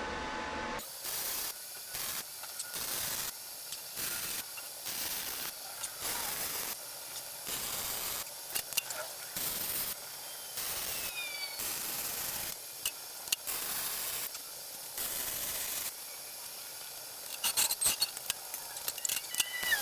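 Electric arc welder laying a run of short stitch welds, each a brief burst of crackling hiss, about one a second with short pauses between. Harsher spiky crackle near the end.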